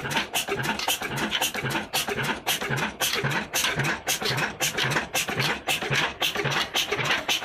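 Old Ruston Hornsby heavy diesel engine running steadily, with a fast, even clatter of sharp knocks, several a second, over a lower regular beat.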